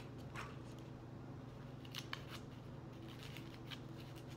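Paper crinkling and rustling in a few short crisp sounds as a homemade paper squishy is handled and stuffed with tissue by hand. One comes just after the start, a cluster about two seconds in, and more between three and four seconds, over a low steady hum.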